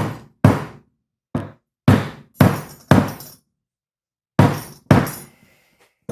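Rubber mallet striking a drive shaft's inner CV joint, about eight sharp blows with a short ringing after each and a brief pause partway through, forcing the joint onto the axle shaft.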